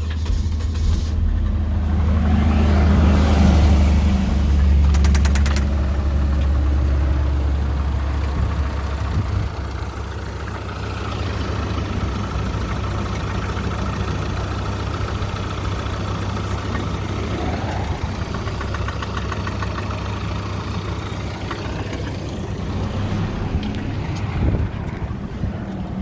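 Chevrolet Vectra engine started and running, louder over the first several seconds and then settling into a steadier idle. It makes an abnormal noise that the owner suspects could be a broken water pump rotor, a valve come loose after recent cylinder head work, or a loose bearing.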